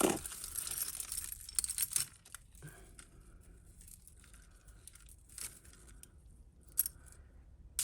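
Hands rummaging in a plastic bag of costume jewellery: crinkling plastic with light metallic jangles, busiest in the first two seconds, then quieter with a couple of small clicks near the end.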